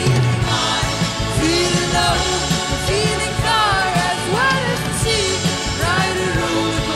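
A woman singing an electronic pop song live, her voice sliding between sustained notes over a steady backing of electronic sounds and drums.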